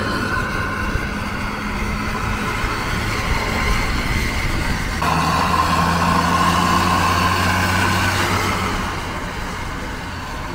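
Road vehicle engine running steadily with traffic and road noise. The sound changes abruptly about five seconds in to a slightly louder engine note with a higher whine.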